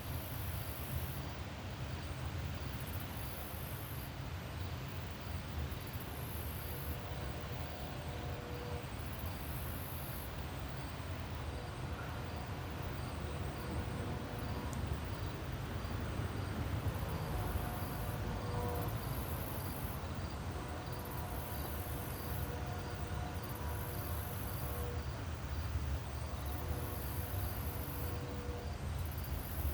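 Insect chorus: a very high, shrill trill that comes and goes in bursts of a second or two, over a steady low rumble.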